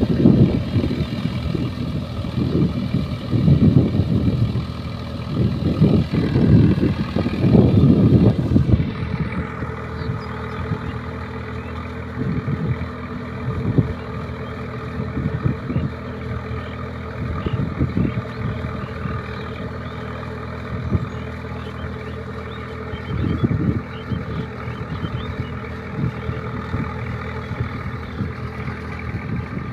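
Swaraj tractor's diesel engine running steadily under load as it pulls a rotavator through a flooded paddy field. Irregular louder low rumbles come and go over the first nine seconds, with a few shorter ones later.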